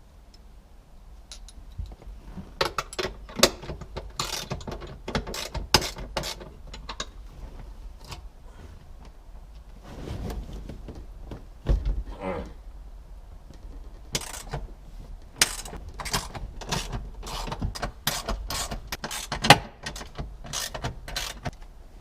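Ratchet wrench clicking in two long bouts as the 13mm bolts holding the aluminum instrument panel carrier are backed out, with some scraping and handling noise between the bouts.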